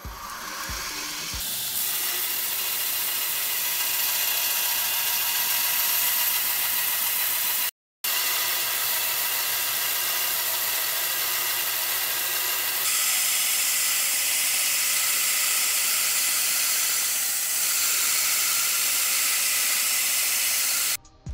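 Belt grinder with a blue abrasive belt grinding a steel knife blank: a steady, high hiss of belt on steel. It builds up over the first couple of seconds, breaks off for a moment about eight seconds in, and changes a little in tone about thirteen seconds in.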